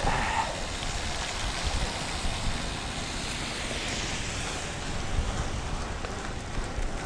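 Cyclocross bike tyres rolling through standing water on wet pavement: a steady hiss of water spray.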